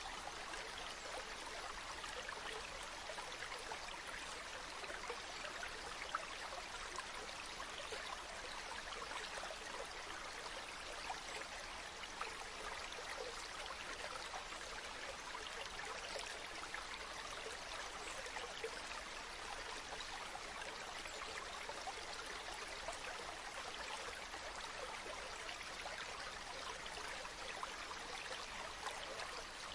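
Mountain stream running steadily over rocks, a continuous rush of water with small splashes and trickles.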